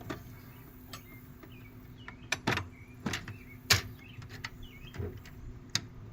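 Tool chest drawer and wrenches being handled: a string of sharp metal clicks and clinks, about half a dozen louder knocks over a few seconds.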